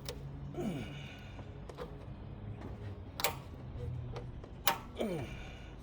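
Hand work at a radiator hose connection: two sharp clicks about a second and a half apart, and short squeaks falling in pitch, over a steady low hum.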